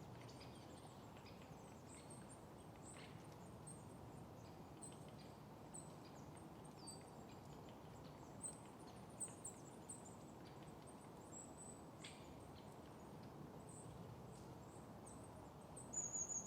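Quiet outdoor ambience of faint birdsong: scattered short, high chirps over a soft steady low hiss, with a longer high call near the end.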